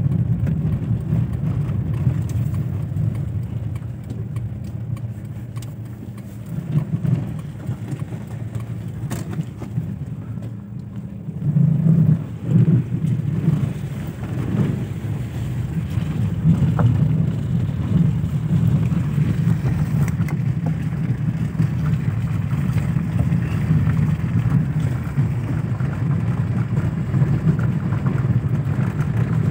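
Car engine and road noise heard from inside the cabin while driving, a steady low drone that swells and dips with a louder surge about twelve seconds in.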